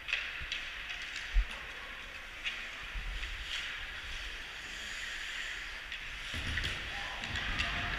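Ice hockey play: skate blades scraping on the ice with scattered sharp clacks of sticks and puck, and one loud low thump about a second and a half in. A low rumble comes in near the end.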